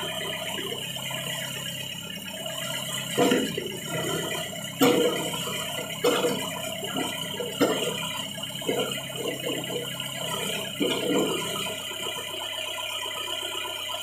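Old tractor-based backhoe loader's engine running steadily while its hydraulic arm works the bucket, with several sharp metallic clanks and rattles from the boom and bucket between about 3 and 11 seconds in.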